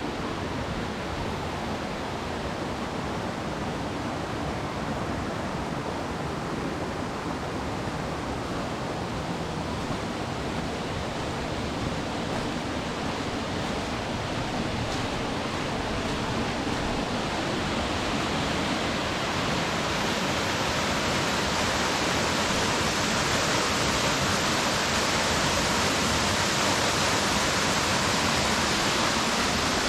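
Steady rush of water falling and flowing over rocks at a small desert waterfall. It grows louder and brighter about two-thirds of the way through.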